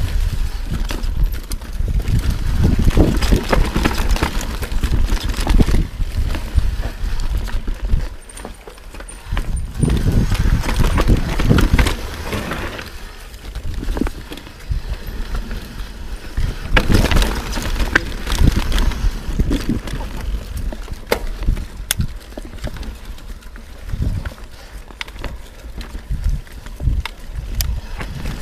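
Yeti SB6c full-suspension mountain bike descending rough forest singletrack at speed, heard from a chest-mounted camera: a steady rush and rumble of wind and tyres on dirt, with frequent sharp clicks and knocks as the bike rattles over rocks and roots. The noise eases for a moment about eight seconds in and again around the middle.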